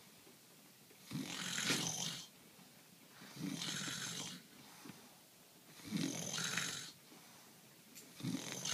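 A man snoring in his sleep: loud snores about every two and a half seconds, each lasting about a second, four in all, the last starting near the end.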